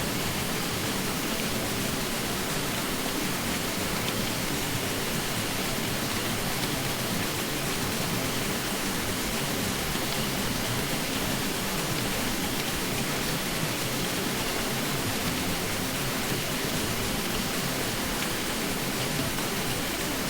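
Ceiling fan running with a steady, even rushing noise that does not change.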